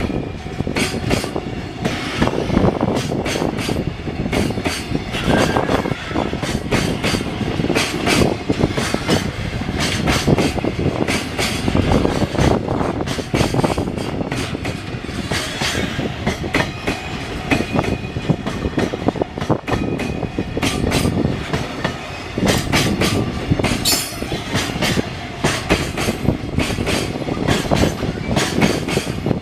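A long train passing the level crossing at close range, a steady rumble with a rapid, unbroken clatter of wheels over the rails.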